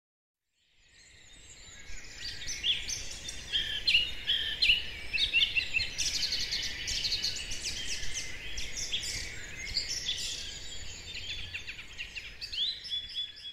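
A chorus of woodland songbirds, many chirps and trills overlapping, over a faint low rumble; it fades in about a second in and fades out at the end.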